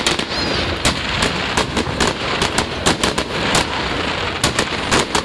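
Fireworks going off in a rapid, irregular run of sharp bangs and cracks, several a second, over a continuous hiss.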